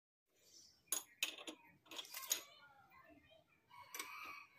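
Sharp metallic clinks and taps of steel hand tools against metal: a few single clinks about a second in, a quick cluster around two seconds, and one more near the end, as a bearing puller is handled on a motorcycle engine case.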